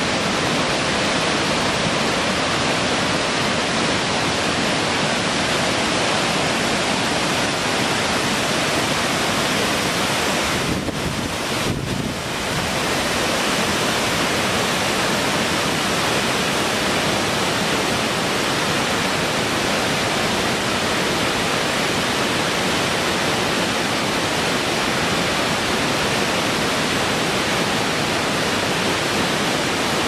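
Steady rushing of water: a river pouring over rocky rapids, then, after a brief break about eleven seconds in, a large waterfall plunging onto rocks.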